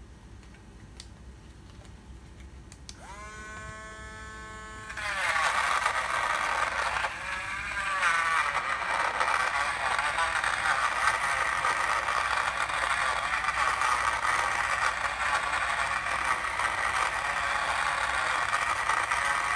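Battery-powered portable blender switched on about three seconds in: its small motor whines briefly, then from about five seconds the blades catch the vegetable chunks and chop them with a loud, steady rattling whir.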